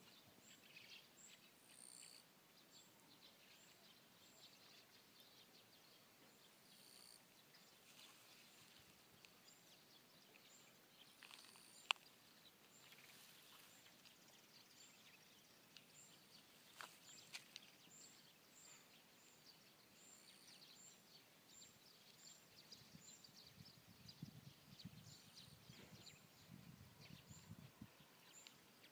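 Near silence: faint rural outdoor ambience with faint, high-pitched chirping repeating every second or so. A single sharp click about twelve seconds in.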